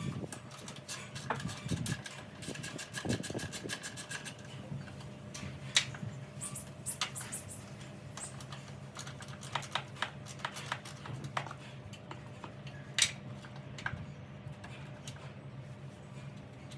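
Scattered sharp clicks and clinks, with a quick run of rapid clicks a few seconds in, over a steady low hum.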